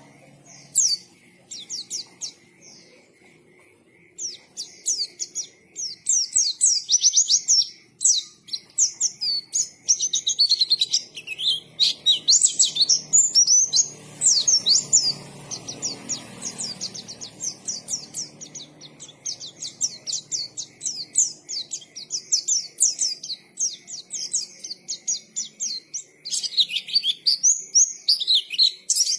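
White-eye (pleci) singing vigorously: rapid high twittering chirps and trills in long run-on phrases. It starts with a few isolated chirps and becomes dense about four seconds in. A soft low rushing noise swells and fades around the middle.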